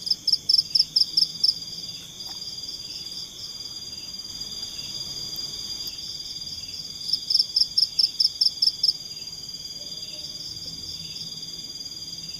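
Night forest insect chorus: a steady high buzz, with a nearby insect calling in two bouts of loud, rapid chirps, about six a second. The first bout comes at the start, the second about seven seconds in.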